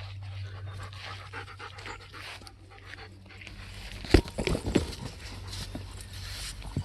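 German shepherd dog panting steadily, with a short cluster of thumps about four seconds in.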